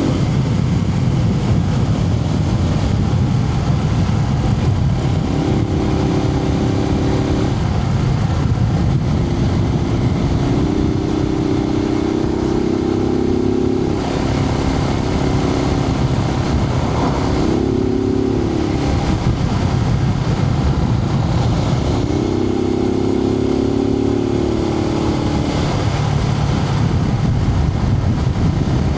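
Suzuki TU250X single-cylinder motorcycle engine running under way, heard from inside the rider's helmet over steady wind noise. The engine note holds for a few seconds at a time and shifts pitch several times, dipping and rising again around the middle.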